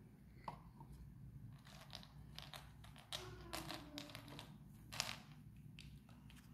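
Faint, scattered clicks and rustles of small hard seeds being handled, with a glass tumbler set down on the tabletop.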